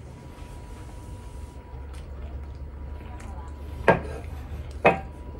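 Two sharp clacks of tableware about a second apart, near the end: a small ceramic dish set down and dishes handled. A low steady hum lies underneath.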